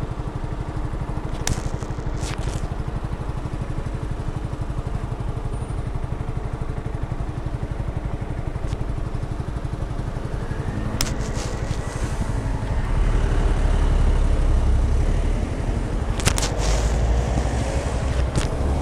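Keeway Superlight 125's 125 cc single-cylinder engine running with a steady low pulse, getting louder from about ten seconds in. A few sharp clicks come through over it.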